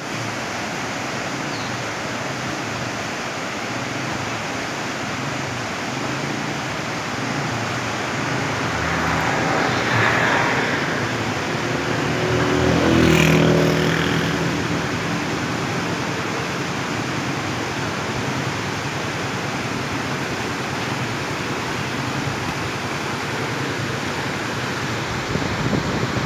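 Whitewater rapids of a river rushing steadily. Between about 9 and 14 seconds in, a motor vehicle passes close by, its engine swelling to a peak and fading.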